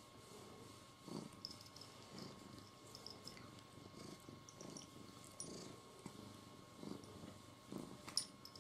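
Domestic cat purring softly, the purr swelling and fading about once a second with its breathing, with a few faint high ticks and one sharp click near the end.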